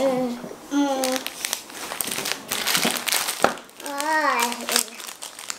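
Plastic Paddle Pop ice-cream wrappers crinkling as a hand rummages through a pile of packets and lifts one out.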